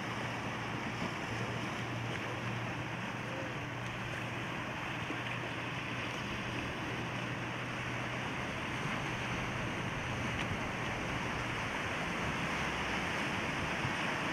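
Surf washing over a cobble beach, growing slightly louder near the end, with the steady low hum of a Zodiac's outboard motor underneath that stops near the end.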